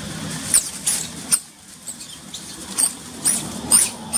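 Baby monkey squealing: a string of about seven short, very high-pitched squeals at uneven spacing.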